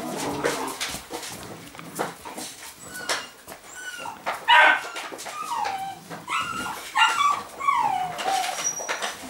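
Rhodesian Ridgeback puppy whimpering: a string of short, high cries that bend up and down in pitch, mostly in the second half, the loudest about halfway through.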